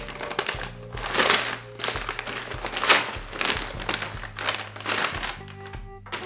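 Brown kraft-paper packaging crinkling and rustling repeatedly as it is unfolded and opened by hand, over background music.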